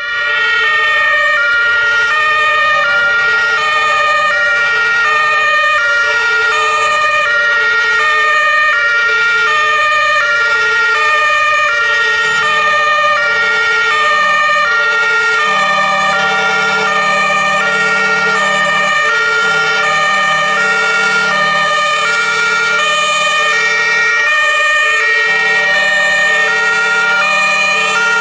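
German two-tone sirens of several approaching fire service vehicles, high and low tones alternating steadily, with more than one siren sounding out of step with the others. A lower hum joins about twelve seconds in.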